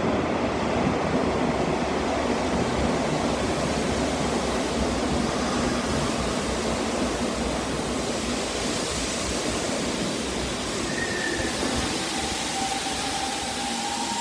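Hanshin Railway electric train running into an underground station platform: a steady rush of wheels and air that eases a little as it slows. Near the end a thin steady tone sets in as the train comes to a stop.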